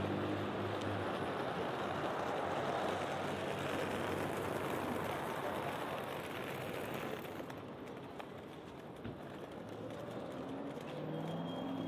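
City street traffic noise: a steady hiss of passing vehicles, with an engine's hum loudest at the start and fading away past the middle, and another engine rising near the end.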